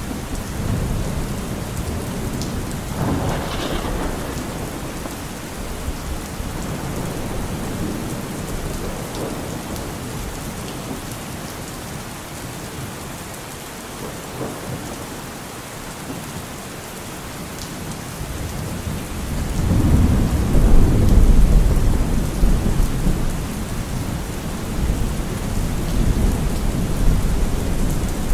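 Steady rain falling, with rolls of thunder: a crack about three seconds in, and a long, loud deep rumble building up from about two-thirds of the way through.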